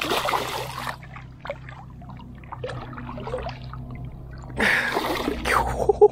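A hooked snook thrashes at the surface in a loud splash of water, then small drips and trickles as the fish is held by the lip in shallow water. A louder rush of water-like noise comes about four and a half seconds in.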